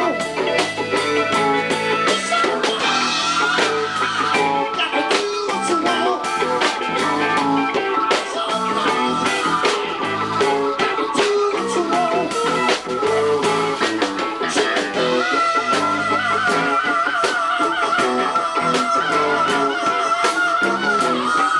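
Live rock band playing: electric guitars over drums, with a long wavering high note held over the last several seconds.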